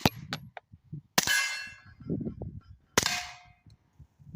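Suppressed 9mm Taurus G3 Tactical pistol firing 135-grain handloads through a Resilient Suppressors RSP suppressor, two shots about a second and three seconds in, each followed by the ring of a struck steel target. The tail of a previous shot and its steel ring carry over at the start.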